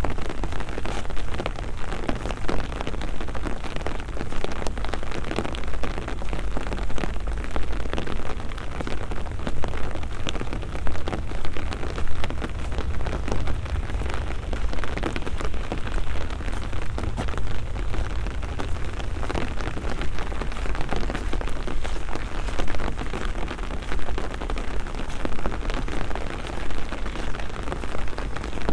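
Steady rain falling, a dense patter of many small drop impacts over a constant low rumble.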